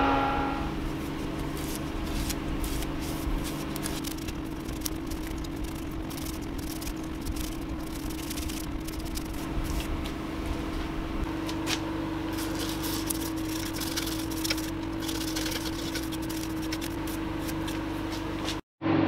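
Laguna 18|36 wood lathe running steadily with a laburnum vase turning on it: a steady motor hum with light crackling and ticking over it. The sound cuts out for a moment near the end.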